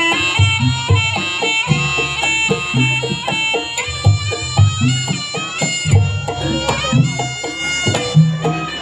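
Live East Javanese jaranan music: a shrill reed-pipe (slompret) melody stepping from note to note over regular hand-drum (kendang) strokes.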